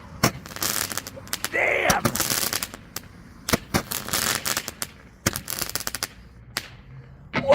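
Two roman candles (Dominator 10 Ball Crackling Candles) firing together: sharp pops followed by several bursts of crackling from the crackling stars, thinning to a few scattered pops near the end.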